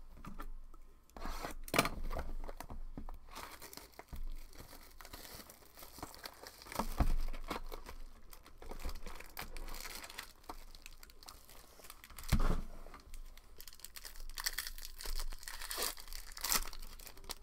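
Foil wrappers of trading-card packs being torn open and crinkled by hand, in irregular rustling bursts, with a few dull thumps.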